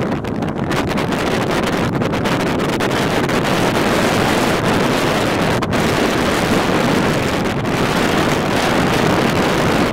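Strong wind buffeting the microphone: a loud, steady rushing noise with brief lulls, the surf on the sea mixed in beneath it.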